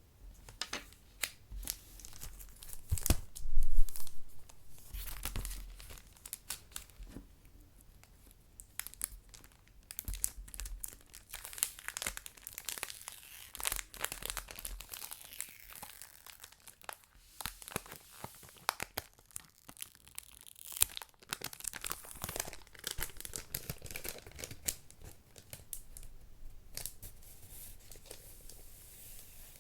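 A stylus scratching and scraping the coating of a scratchboard in short, irregular strokes with crisp crackles, loudest about three to four seconds in.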